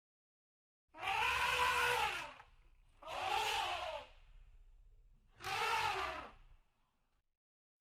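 An animal calling three times, each call about a second long and rising then falling in pitch.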